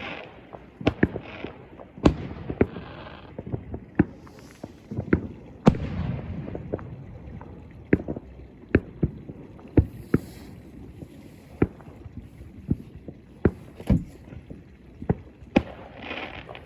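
Fireworks going off: a steady run of irregular sharp bangs, one or two a second, with short crackling bursts now and then and a low rumble underneath.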